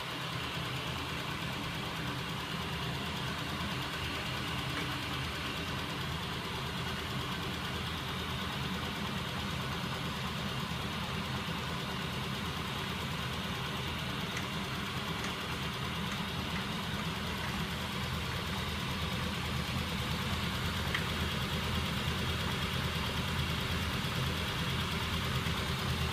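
Home-built magnet crank mechanism driven by small 12-volt DC electric motors, running steadily with the hum of the motors and a fast, even clatter from the moving linkages. It gets slightly louder in the second half.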